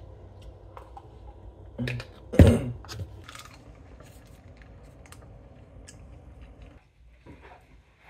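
Kitchen handling noises over a steady low hum: a thump about two seconds in, then a louder, deeper knock just after, followed by a few small clicks. The hum stops about seven seconds in.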